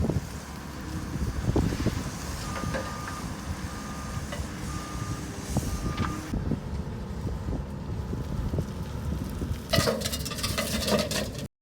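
Skid steer engine running under work, its reversing alarm beeping four times about once a second, then a burst of clattering near the end before the sound cuts off suddenly.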